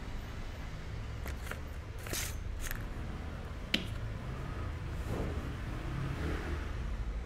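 Short scratchy strokes of a brush working slip into the scored edges of a clay slab, a sharp click near the middle, then softer rustling as the clay slabs are handled on a canvas cloth, over a steady low rumble.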